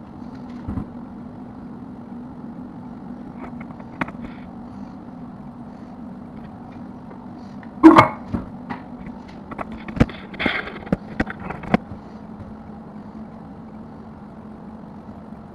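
Scattered knocks and clicks of objects being handled over a steady low hum. The loudest is a sharp knock about eight seconds in, followed by a run of clicks and rattles over the next few seconds.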